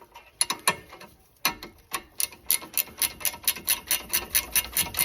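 Ratchet wrench with a 17 mm socket clicking as it turns a brake caliper bracket bolt: a few separate clicks, then from about two seconds in a steady run of about four clicks a second.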